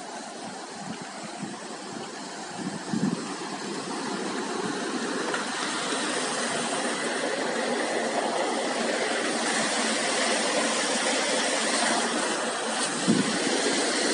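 Steady rushing of a river in flood, the noise growing louder over the first six seconds and then holding, with a dull knock about three seconds in and another near the end.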